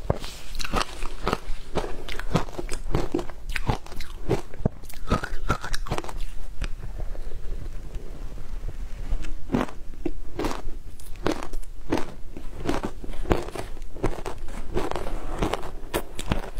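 Close-up crunching and chewing of frozen matcha ice: a dense run of crisp crunches that thins out briefly about seven seconds in, then resumes.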